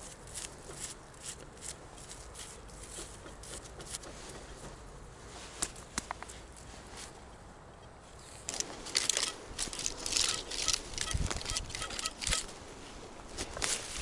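Crackling and rustling of dry leaves and soil being stirred, getting louder and busier about two-thirds of the way through, with faint short metal detector beeps among it.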